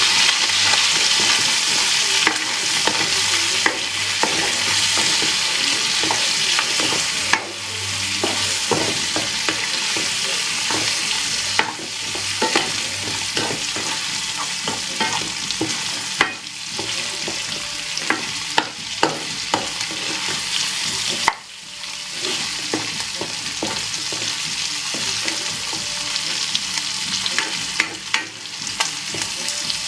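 Food sizzling in hot oil in a pan while being stirred, a spatula clicking and scraping against the pan again and again. The sizzle breaks off briefly a few times.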